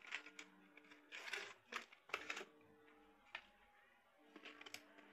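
Faint rustling and clicks from a cardboard box and a clear plastic blister tray being handled and pulled apart, with several short bursts about one and two seconds in. Faint background music plays underneath.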